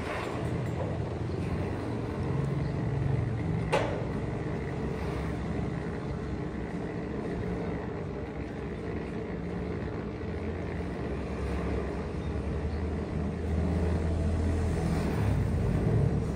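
Italian-made automatic swing-gate motors running steadily as the two gate leaves swing shut, with one sharp click about four seconds in. The hum grows louder near the end as the leaves come to the closed position.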